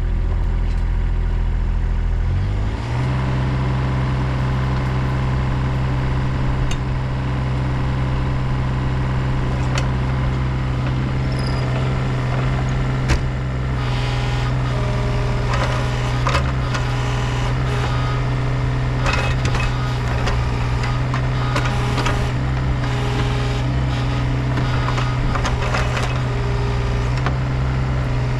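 Cat 301.8C mini excavator's diesel engine running steadily, its speed stepping up about two and a half seconds in. From about halfway on, scattered clanks and knocks of the machine at work sound over the engine.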